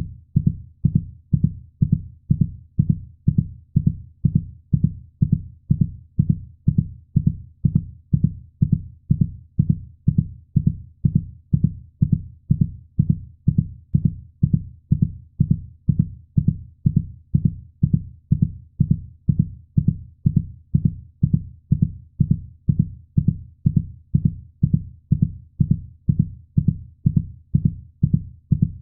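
Heartbeat sound: a steady, even rhythm of low thumps that repeats without change.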